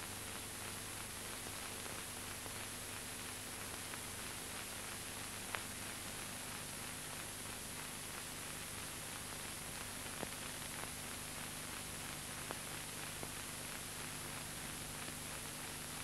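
Steady hiss and low hum of an old film soundtrack with no narration, broken by a few faint clicks about five and a half, ten and twelve and a half seconds in.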